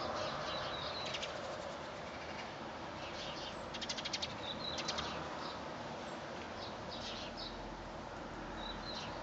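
Birds chirping in short high notes over a steady hiss of wind and rain, with a quick rattling trill about four seconds in.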